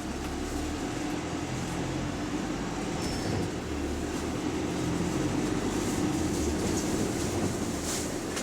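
Bus engine and road noise heard from inside the saloon while the bus drives between stops: a steady low rumble with rattles and a faint hiss above it.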